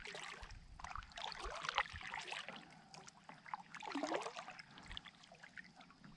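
Kayak paddle dipping and pulling through calm water, with faint small splashes and water trickling off the blade, and a brief gurgle about four seconds in.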